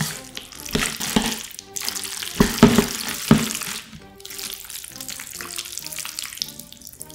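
Chopsticks mixing jajangmyeon noodles through thick black bean sauce in a bowl: a wet, sticky stirring sound, loudest about halfway through, then easing off. Soft background music plays underneath.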